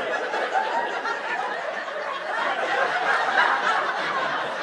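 Audience laughing, many voices at once, rising a little around the middle.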